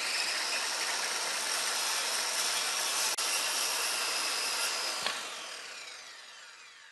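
Power saw running steadily with a high whine over harsh noise, then switched off about five seconds in and winding down as the pitch falls and the sound fades away.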